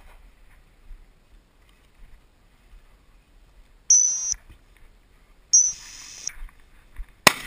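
Two high blasts on a dog whistle, a short one and then a longer one about a second and a half later, followed near the end by a single sharp gunshot.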